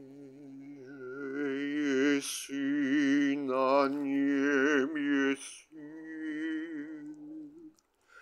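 A man's voice singing or chanting long, held notes without clear words, the pitch wavering slightly; three long notes, the last fading out near the end.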